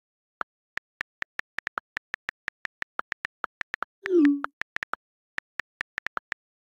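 iPhone on-screen keyboard clicks as a message is typed: short ticks at an irregular typing pace, a few with a slightly lower click. About four seconds in, a louder low pop that falls in pitch: the alert of an incoming iMessage arriving in the open conversation.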